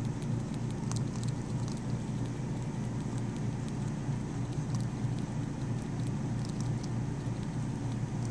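Pet rats chewing treats and shuffling in wood-shaving bedding: scattered small crackles and clicks over a steady low hum.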